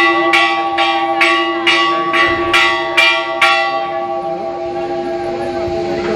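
Hindu temple bell rung over and over, about two strikes a second. The strikes stop about three and a half seconds in and the bell is left ringing and fading.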